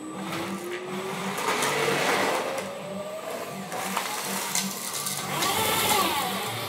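Small electric motors and gearing of radio-controlled construction models whining over a low pulsing hum, one pitch rising steadily over the first four seconds. Near the end the loader's single electric linear actuator whines as it lifts the boom and bucket.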